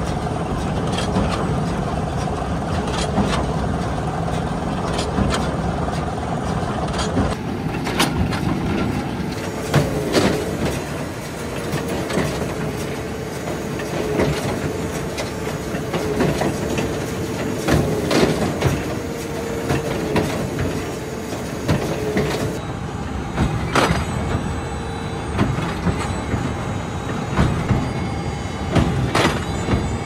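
Big square baler running while baling linseed straw: a steady mechanical clatter and hum, with repeated sharp knocks from its mechanism.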